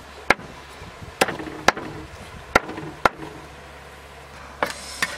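Meat cleaver chopping raw duck on a thick wooden chopping block. Five sharp chops come half a second to a second apart over the first three seconds, then a pause and a couple more knocks near the end.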